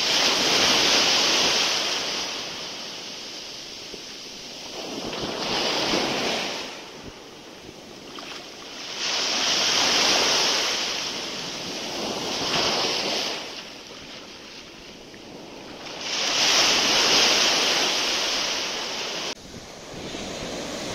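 Surf breaking on a sandy beach: waves wash up the shore in about five surges, each rising and falling over a couple of seconds. The sound drops off suddenly near the end.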